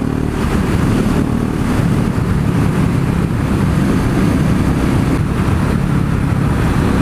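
KTM 690 Duke's single-cylinder engine running steadily while riding, through an Akrapovic exhaust with the dB killer removed and the catalytic converter still fitted. Heavy wind noise on the microphone.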